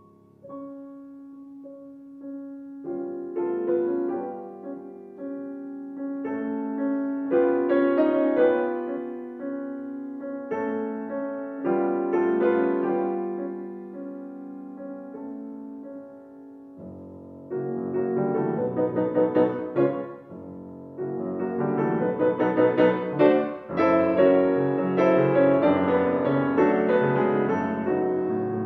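Concert grand piano playing solo classical music: a quiet passage of slow, held chords that turns louder and denser about halfway through, with deeper bass notes entering.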